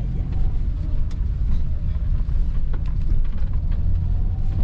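Road noise inside a moving car's cabin: a steady low rumble from the engine and tyres, with a few faint knocks.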